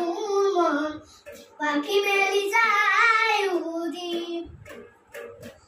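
A young boy singing a song in two phrases with a short break between, holding and bending notes. The singing stops near the end, leaving a few faint clicks and knocks.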